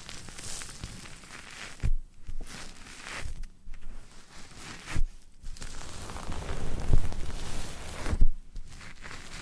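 Close-miked ASMR trigger sounds: irregular rustling and scratching right against the microphone, with a few short low thumps.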